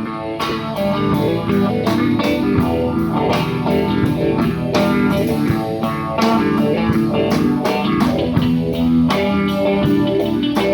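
Guitar music: plucked and strummed guitar notes over a bass line, going on without a break.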